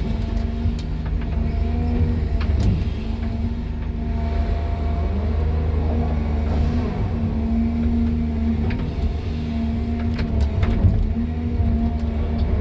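Excavator diesel engine running steadily, heard from inside the cab, its pitch wavering slightly at times, with a few faint clicks.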